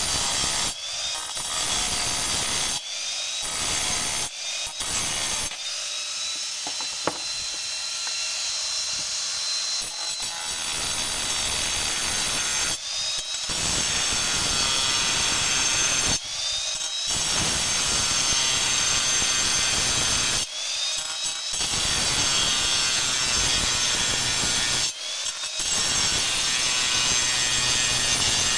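Angle grinder with a thin cut-off disc cutting through steel chain links: a steady high motor whine over a grinding hiss. Several times the cutting sound briefly eases off and the whine then climbs back up.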